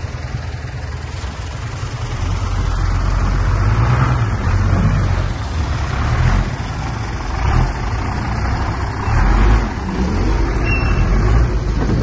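Bulldozer's diesel engine running under load, with a steady low rumble that swells and eases every second or two.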